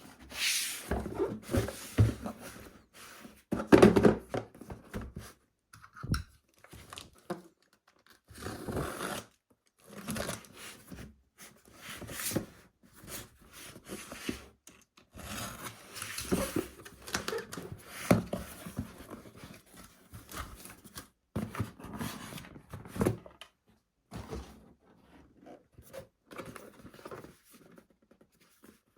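Hands handling packaging and small plastic parts: irregular rustling, scraping and tearing with occasional knocks, the loudest about four seconds in.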